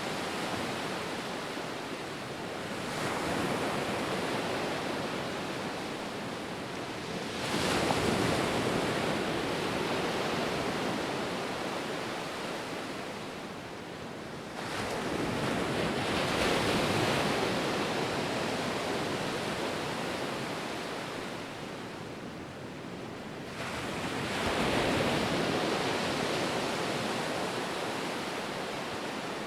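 Ocean surf: waves breaking and washing in as a rushing hiss that swells up four times, every seven to nine seconds, and fades slowly between breaks.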